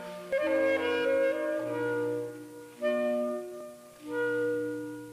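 Background music: slow held chords, a new chord coming in every second or so, the last one fading out near the end.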